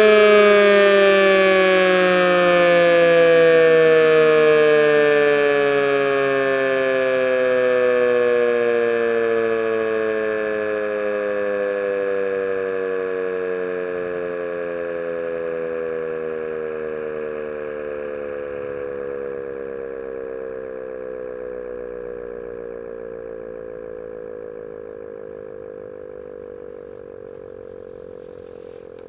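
Older Rosenbauer FS 8 motor siren spinning down after being switched off: its howl falls slowly and steadily in pitch and fades away, without cutting off.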